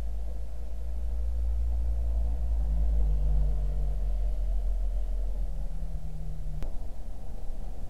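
Steady low rumble of wind buffeting the microphone, with a faint low hum for a few seconds and a single sharp click about two-thirds of the way through.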